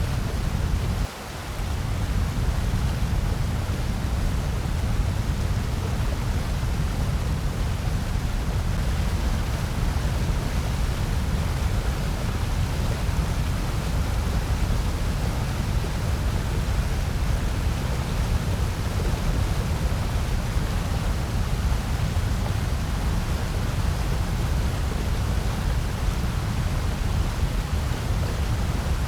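Steady electronically generated noise, an even hiss heaviest in the low range, with one brief dip in level about a second in.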